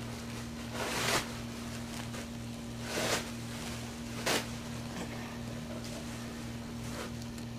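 A steady low hum with three short bursts of hiss, one about a second in, one at about three seconds and one a second later.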